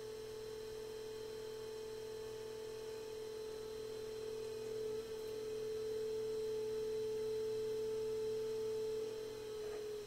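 Steady electric hum from an electric potter's wheel running while wet porcelain is thrown on it; the hum grows somewhat louder about halfway through and eases off near the end.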